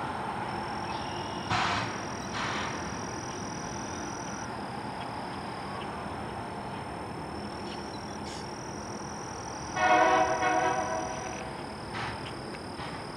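Loram rail grinder train rolling along the track with a steady rumble and two short bursts of noise early on, then one horn blast of about a second and a half, about ten seconds in, with a shorter echo of it just after.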